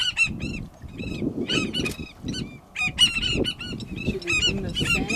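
A flock of birds calling over one another: rapid, repeated high honking calls from several birds at once, with no break.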